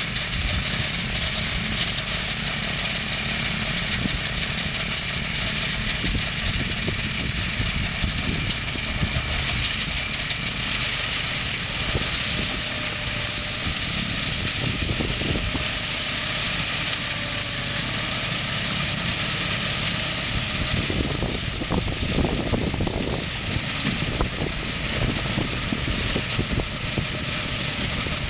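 Small engine of a remote-controlled tool carrier with a snowblower attachment, running steadily as the snowblower throws snow. A few uneven, louder knocks come about three-quarters of the way through.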